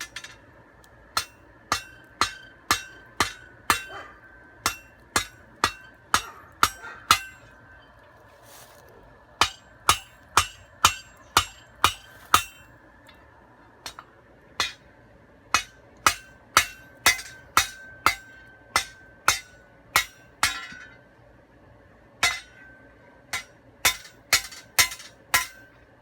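Blacksmith's hammer striking hot steel on an anvil to draw out a point, about two blows a second in runs broken by short pauses, the anvil ringing after each blow.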